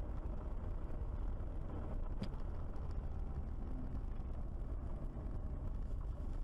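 Car driving on a snow-covered highway, heard from inside the cabin through a dashcam: a steady low rumble of engine and tyres, with one faint click about two seconds in.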